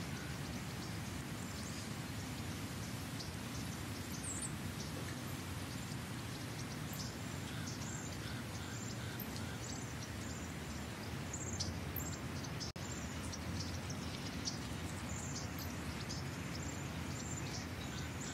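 Small birds chirping repeatedly in short high calls over a steady low rumble of outdoor ambient noise. The sound drops out for an instant about two-thirds of the way through.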